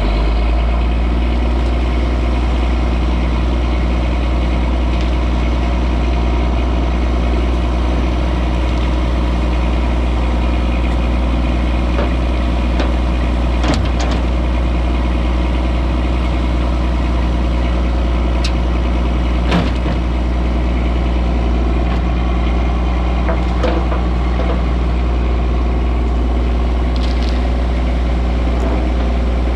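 An engine running steadily, with a couple of brief knocks partway through.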